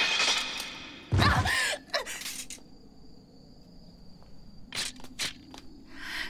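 Anime soundtrack: a scream fades out, then a heavy thud comes about a second in. After it crickets chirp steadily, with a few sharp clicks around the five-second mark and a breath near the end.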